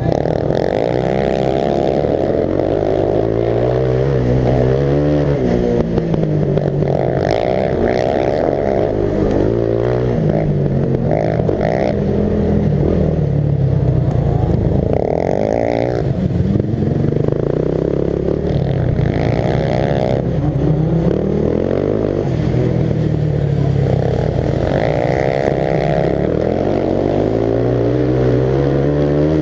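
Racing lawnmower's engine, heard up close from the driver's seat, revving up and easing off again and again under racing load on a dirt track.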